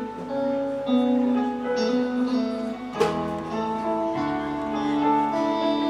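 Instrumental background music: a slow melody of held notes, with a sharp attack about three seconds in.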